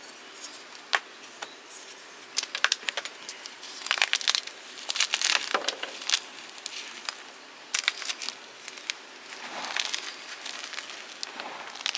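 Fresh blocks of gym chalk being crushed, breaking up in crisp crunches and crackles that come in uneven clusters.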